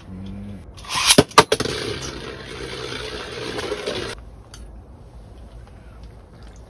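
A Beyblade spinning top launched into a clear plastic stadium: a quick whirring pull of the launcher and two sharp clacks as the top lands, then the top spinning and scraping around the plastic bowl for about three seconds before the sound stops suddenly.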